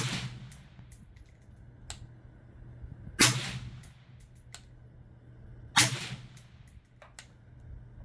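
Three suppressed rifle shots about two and a half to three seconds apart, from a 5.56 AR-15 with a B&T VERS36 titanium suppressor, fired while zeroing the sights. Each shot is a sharp crack with a short echo, and a few light clicks and clinks fall between the shots.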